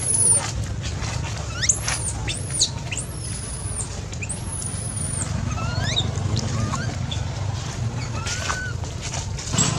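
High-pitched squeaky animal calls: a cluster of quick rising and arching squeaks in the first half, then a few fainter scattered ones, over a steady low rumble.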